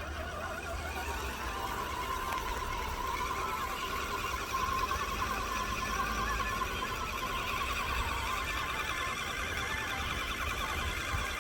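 Electric motor and gearbox of an RC model truck whining steadily as it runs, the pitch wavering slightly, over a low rumble.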